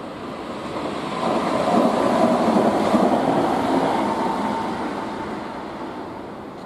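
A train passing, its rumble swelling to a peak about two to three seconds in and then fading away, with a faint whine near the loudest part.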